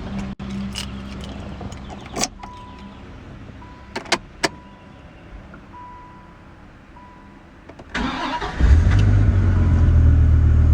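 A few sharp clicks and an intermittent warning tone, then about eight seconds in the starter cranks and the Dodge Viper RT/10's 8.0-litre V10 fires, settling into a loud, deep idle.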